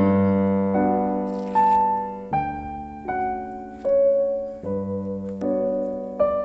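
Background piano music: slow, soft chords and single notes, each struck and left to ring and fade.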